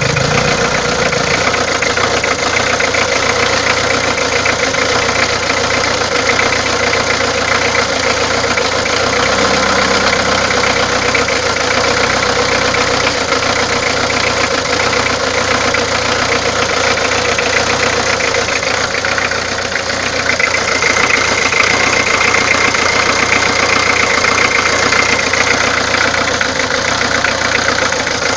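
Peugeot diesel engine idling steadily with the abnormal engine noise being diagnosed. A steady high whine rises above it about two-thirds of the way through.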